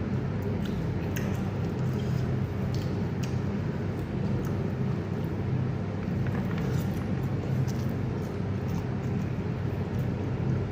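A person eating: scattered soft clicks and smacks of chewing over a steady low background hum.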